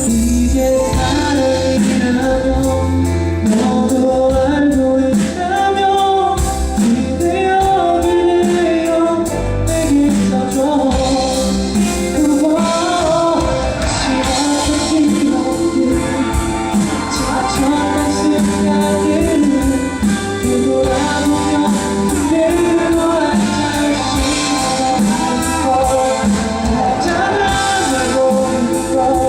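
Live pop ballad performed with a band: a singer's voice carries the melody over bass, keyboard and a steady beat.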